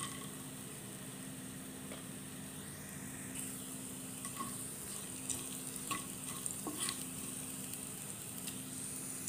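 Oil sizzling in a frying pan as cashews, urad dal and mustard seeds fry in a tempering. A wooden spatula stirs them, scraping and tapping the pan a few times.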